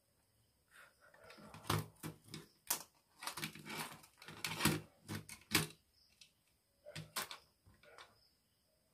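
Handling noise of small electronics work: irregular clicks, taps and rustles as a circuit board, its wires and a plastic lamp case are handled at a small battery's terminals. The sounds are densest in the middle few seconds and sparser near the end.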